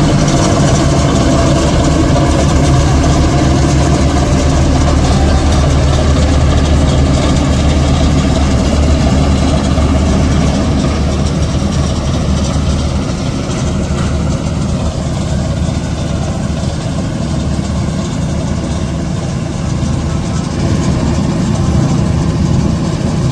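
Heavy diesel farm-machinery engine running steadily, a little quieter from about ten seconds in.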